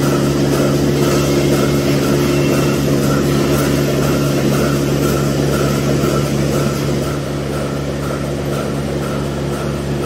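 DeLaval milking machine running in a milking parlour: a steady low hum from the vacuum system, with a regular pulsing beat from the pulsators, a little under twice a second. It gets slightly quieter after about seven seconds.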